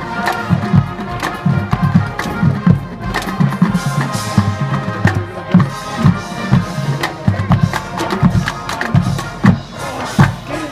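Marching band playing: wind and brass instruments holding pitched notes over a drumline's quick, repeated drum hits.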